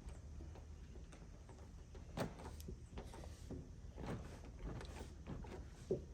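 Scattered light taps and knocks from hands handling and pressing parts, the loudest about two seconds in and again near the end, over a low steady rumble.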